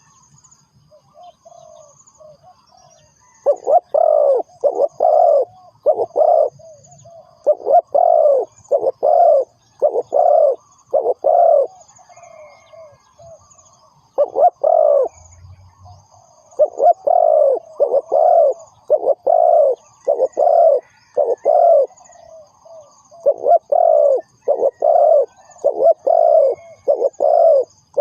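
Spotted dove calling: repeated phrases of several coos each, separated by pauses of one to three seconds, with faint high chirping behind.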